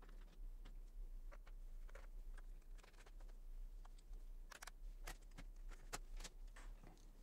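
Faint scattered clicks and taps as a screwdriver works the plastic bottom cover of a laptop and the cover is pried loose, the clicks coming thicker a little past halfway.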